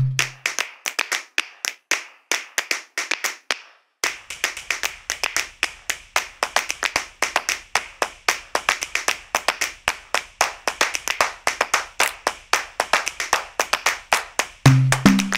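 Percussion break in an upbeat children's dance track: the melody drops out and leaves fast hand claps. The claps fade away over the first few seconds and stop briefly. They then come back as a steady clapping beat of about five or six claps a second over a faint low pulse. The melody returns near the end.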